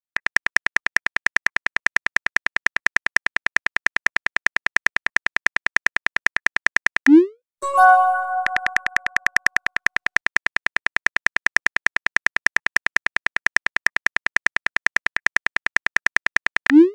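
Phone keyboard typing sound effect: rapid, evenly spaced clicks. About seven seconds in, a short rising swoosh of a message being sent and a ringing notification chime break the typing, which then resumes; another swoosh begins near the end.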